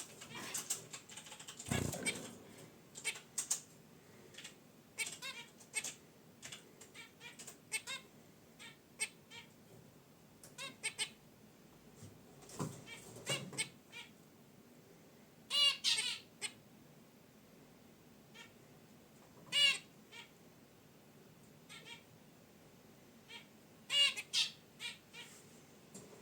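Zebra finches calling: many short scattered chirps and several louder nasal honks, the loudest about two thirds of the way in and near the end. Two low thumps, one about two seconds in and one near the middle.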